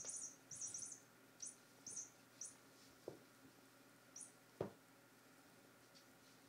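Two Maine Coon cats wrestling on a wooden floor: faint high-pitched squeaks in a quick run of short bursts, one more a little after four seconds in, and two soft thumps about three and four and a half seconds in.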